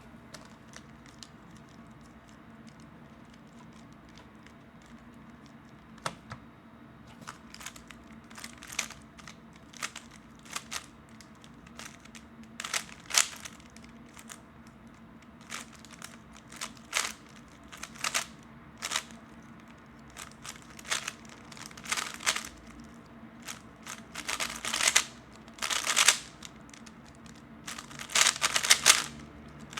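Plastic clicks and clacks of a 3x3 Rubik's cube's layers being turned by hand: single turns scattered at first after a few quiet seconds, then faster runs of turns near the end.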